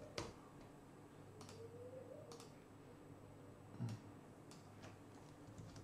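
Near silence with a few faint, scattered clicks from a computer keyboard and mouse, and a soft knock about four seconds in.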